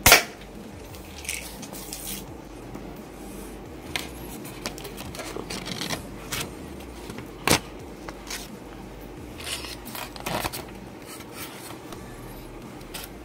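A single sharp snap at the start as the spring toy gun fires a 6mm plastic pellet. Then a paper target and a styrofoam board being handled: rustling and scraping with scattered clicks, one louder click about halfway through.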